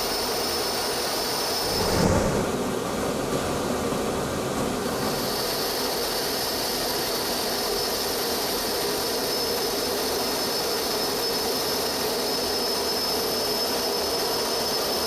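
F-15 fighter's jet engines running steadily, a dense roar with a high, even whine over it, and a brief louder low rumble about two seconds in.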